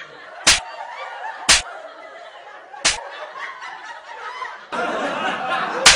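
Four sharp hand slaps at uneven intervals, over snickering and laughter that grows louder near the end.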